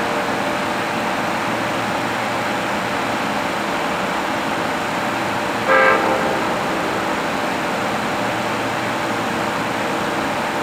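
Approaching Amtrak Regional train sounding one short horn blast about six seconds in, over a steady background noise.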